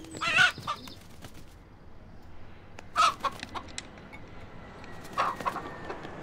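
White broiler-type rooster clucking: three short calls, about half a second in, at about three seconds and a little after five seconds.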